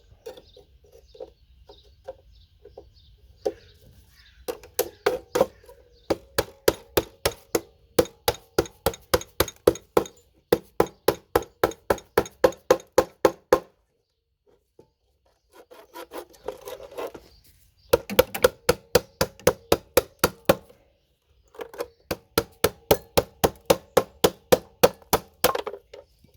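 A hammer repeatedly striking the RAM slots on a motherboard to knock them off, in quick runs of about three blows a second with short pauses between runs. Each blow has a short ring.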